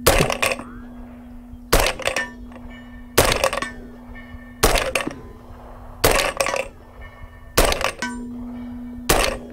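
Seven shots from a suppressed 300 Blackout AR pistol with a 4.75-inch barrel, about one every second and a half. Each shot is followed a moment later by the clang and ring of a steel target being hit at 100 yards.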